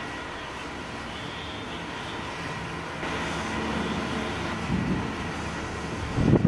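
Distant thunder rumbling low, swelling briefly past halfway and rising to its loudest roll near the end, over a steady hiss.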